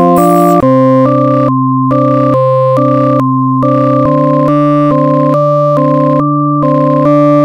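Background music on an electronic keyboard: a bright, steady run of notes at about two a second over a held bass note that shifts about half a second in and again about four seconds in.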